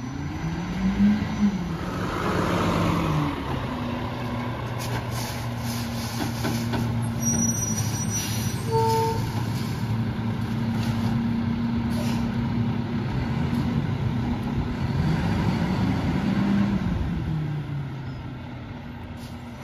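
Mack LEU garbage truck's diesel engine idling, rising in revs and settling back twice, about a second in and again near the end.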